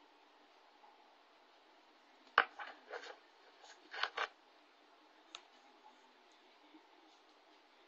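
Several sharp clicks and light taps over a faint steady hiss: a loud one about two and a half seconds in with a few quick follow-ups, a close pair about four seconds in, and a single click a second later.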